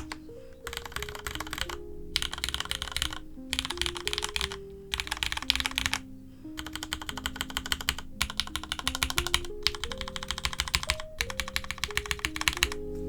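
Typing on a mechanical keyboard with Cherry MX2A Orange tactile switches: fast runs of keystroke clacks broken by short pauses every second or so. Soft background music plays underneath.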